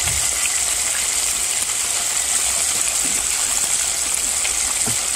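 Floured chicken breast pieces deep-frying in hot oil, a steady sizzling and bubbling with a few faint crackles. The pieces are browned and crisping near the end of frying.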